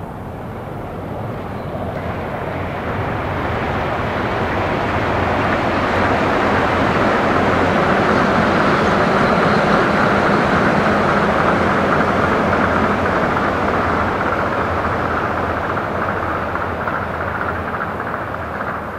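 Rubber-tyred Tokyo Monorail train passing by on its elevated concrete guideway: a rolling noise that grows, is loudest about halfway through, then fades as the train moves away.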